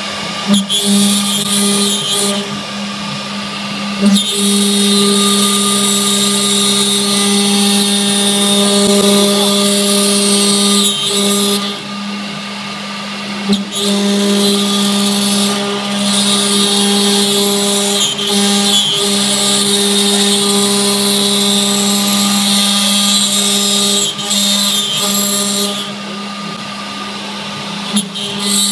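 A CNC router's spindle hums steadily while its end mill cuts through an aluminium sheet, adding a loud, harsh high hiss. Three times the cutting noise drops away for a second or two, leaving only the spindle's hum, as the bit comes out of the cut between letter contours. It then comes back in with a short sharp burst.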